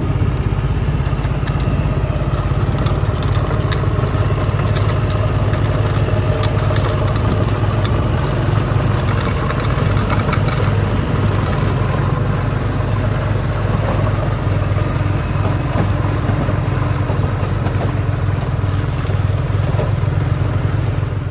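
JCB 3DX backhoe loader's diesel engine running at a steady pace as the machine drives along a dirt track, with light clicks and rattles here and there over the engine.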